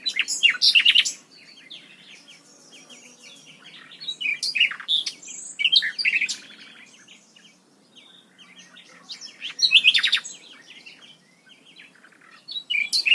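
Small songbirds singing: loud bursts of high chirps and trills roughly every four seconds, with fainter chirping between.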